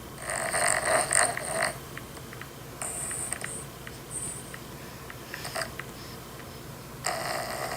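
Dog snoring: rasping, wheezy breaths in irregular bouts, the longest lasting over a second near the start and another near the end.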